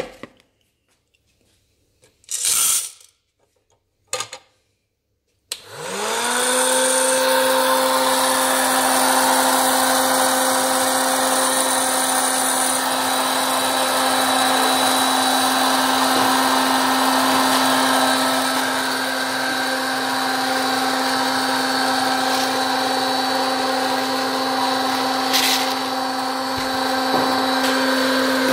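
A few brief handling sounds, then about five seconds in a hot air popcorn maker is switched on: its fan motor spins up within a second and runs with a steady hum and a rush of blowing air, heating the kernels.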